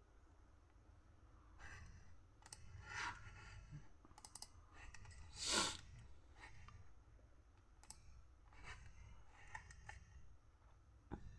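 Faint, scattered clicks from a computer's mouse and keyboard, with one short, louder rush of noise about halfway through.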